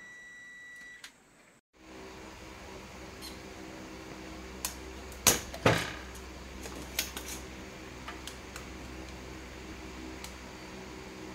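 A digital multimeter's continuity beep, one steady high tone that stops about a second in. Then a steady low hum runs under scattered sharp clicks of soldering tools being handled; the two loudest clicks come in quick succession a little past halfway.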